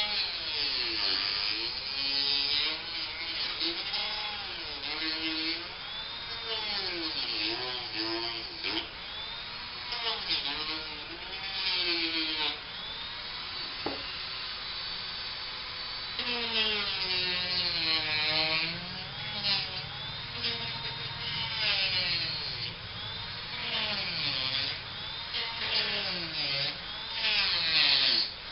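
Small high-speed power tool, such as a rotary tool, grinding fibreglass. Its motor pitch dips and recovers over and over as it is pressed into the work and eased off.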